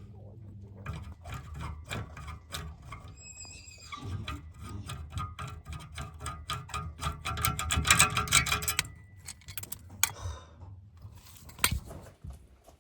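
Hand tools clicking, knocking and scraping on metal under a car, with a brief squeak about three seconds in and a louder run of rapid clicks later on.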